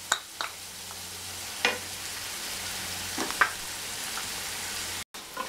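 Chopped onion, capsicum and sauces sizzling in hot oil in a frying pan as a wooden spatula stirs them, knocking and scraping against the pan a few times.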